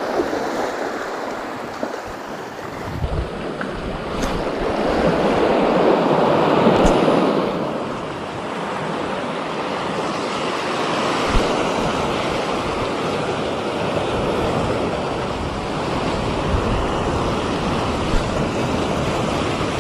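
Sea waves washing onto the beach, with wind buffeting the microphone. A louder surge of surf builds and falls away between about four and eight seconds in.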